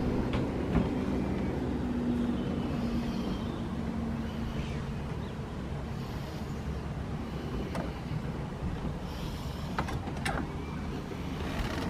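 A steady low engine rumble with a faint hum that fades after about five seconds, and a few sharp clicks near the end.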